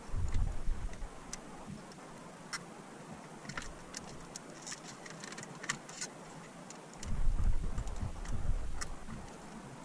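A razor blade scraping old adhesive off a small metal rearview-mirror mounting button, heard as scattered sharp ticks and scrapes. Bursts of low rumble come near the start and again about seven seconds in.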